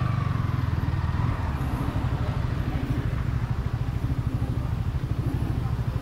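Motorcycle engine running steadily at low revs, with an even pulsing beat and no change in speed.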